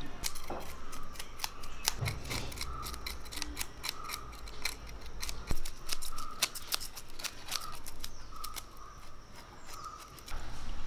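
Knife scraping the scales off a pearl spot fish (karimeen): a rapid run of crisp scraping clicks, stroke after stroke.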